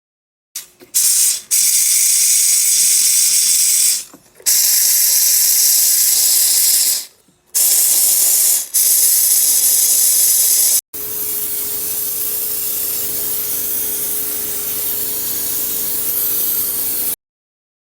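Loud hissing spray in three long bursts of about three seconds each, with short breaks between them, during cleaning of a car's air-conditioning evaporator. After that comes a steadier, lower rushing sound with a faint steady hum, which cuts off abruptly.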